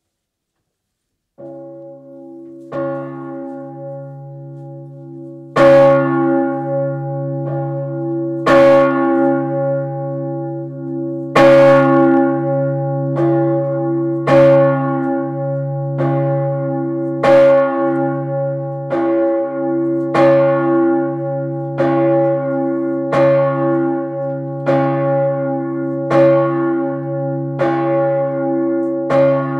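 Urban, the 3200 kg swinging church bell cast in 1588 and tuned near C-sharp, being rung up. The clapper first touches lightly about a second in, then from about five seconds in strikes fully about every one and a half seconds, every other stroke louder, with the deep hum ringing on between strokes.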